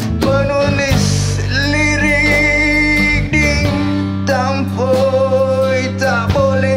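A song: a voice singing in Malay over guitar accompaniment, holding long notes with vibrato.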